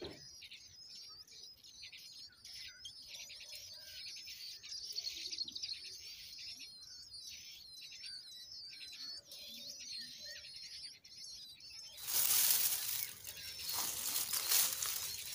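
Nestlings begging at the nest with a rapid, high-pitched, wavering chatter while the parent feeds them. About twelve seconds in, a louder rustling noise cuts in and drowns the calls.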